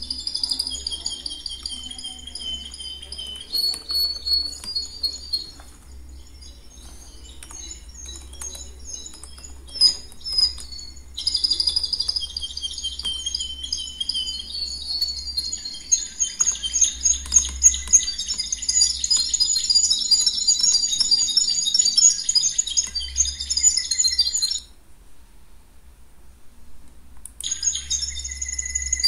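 Small birds chirping and twittering in a dense, continuous high-pitched chorus over a low steady hum. The chirping stops abruptly for about three seconds near the end, then starts again.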